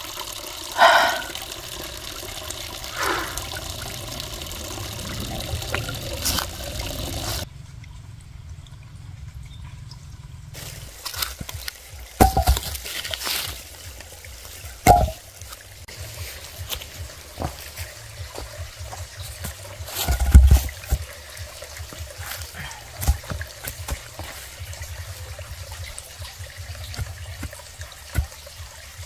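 Water trickling and pouring, with scattered sharp knocks and clicks, the loudest about twelve, fifteen and twenty seconds in. The sound drops out abruptly for about three seconds a quarter of the way through.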